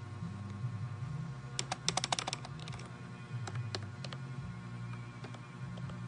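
Keys of a Mofii 666 wireless keyboard with round keycaps being typed on: a quick run of clicks about a second and a half in, then a few scattered clicks.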